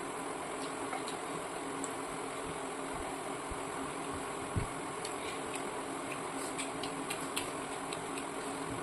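Steady mechanical hum carrying two faint steady tones, with faint scattered clicks over it and a single low thump about four and a half seconds in.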